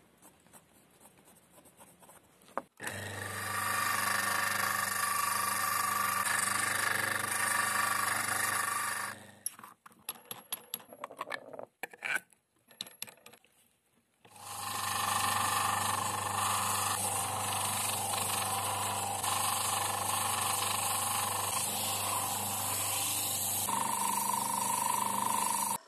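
Electric motor of a homemade grinder running steadily with a low hum and a steady whine. About nine seconds in it stops, and there are a few seconds of small clicks and knocks while the flap disc on its spindle is handled. Then it runs again until it cuts off at the end.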